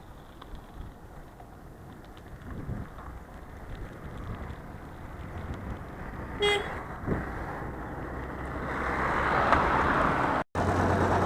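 Road traffic noise with one short vehicle horn toot about six and a half seconds in. A vehicle's noise swells over the last few seconds, broken by a brief dropout.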